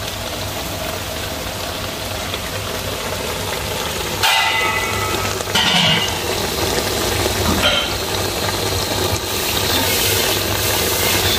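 Fish-braising sauce bubbling and sizzling in a wok on a gas burner: a steady hiss, louder for a few moments around four to six seconds in and again near eight seconds.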